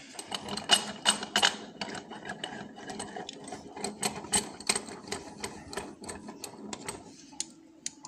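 Handling clatter of a lock cylinder being fitted into a 3D-printed plastic holder and set into a bench vice: a run of irregular small clicks and knocks of plastic and metal, dense at first and thinning out over the last couple of seconds.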